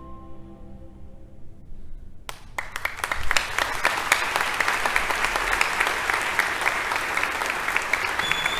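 The last note of the bandolim and string orchestra fades away, then about two and a half seconds in the concert audience breaks into steady applause with dense clapping.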